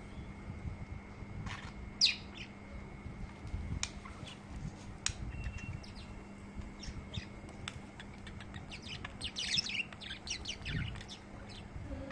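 Pet budgerigars chirping: short, scattered high calls, coming thicker and quicker as chattering near the end.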